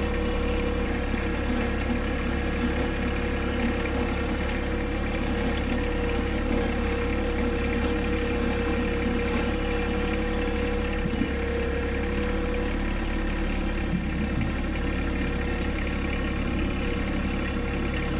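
A motor vehicle's engine running steadily, an even hum with a steady whine that weakens about two-thirds of the way through.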